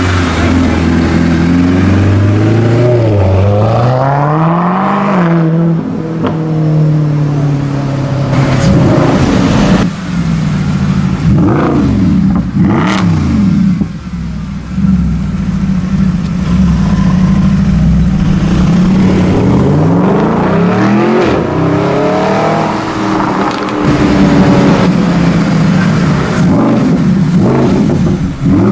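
Mercedes-Benz SLS AMG's 6.2-litre V8 through an aftermarket exhaust, revving up and down several times, holding a steady note for a few seconds in the middle, then revving again. A few sharp pops stand out about a third of the way in.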